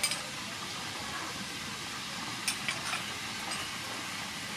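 Chili and hoisin sauce sizzling steadily in hot oil in a frying pan, with a few light clicks of a spoon against a small bowl near the start and about two and a half seconds in.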